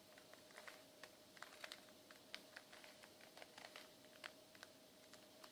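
Faint, irregular plastic clicks of a 3x3 Rubik's cube as its layers are turned by hand, several clicks a second.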